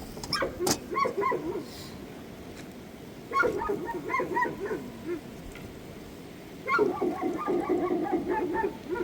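A dog whining and yipping in three bouts of short, high, wavering calls.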